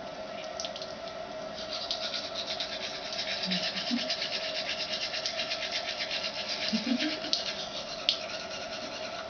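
Manual toothbrush scrubbing teeth in fast back-and-forth strokes, starting about a second and a half in and easing off near the end, over a steady low hum.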